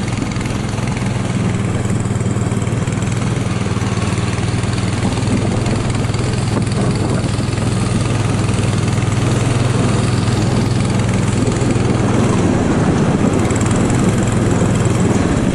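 Small engine of a motorized towing snowmobile (motor-dog) running steadily under way, a constant low drone heard from on board, growing slightly louder toward the end.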